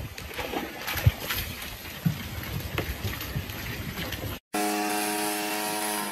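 Water sloshing and splashing in a plastic tub as a dog moves about in it, with a few sharp knocks against the tub. About four seconds in, this cuts off and a steady droning hum takes over.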